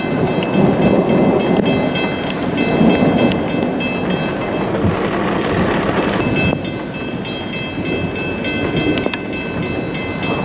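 Heavy rain falling with thunder rumbling. A thin, steady high tone runs over it for most of the time and drops out for about two seconds in the middle, where the rain turns into a brighter hiss.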